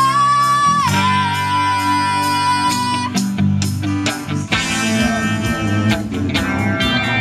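Small live band playing: strummed acoustic guitars over electric bass and drums. A long held lead note steps up in pitch, drops about a second in and holds until about three seconds in, before fuller strumming with a steady beat takes over.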